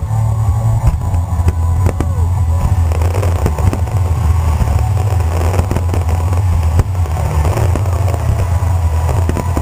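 Aerial fireworks shells bursting in quick succession, many bangs running into one another over a continuous low rumble.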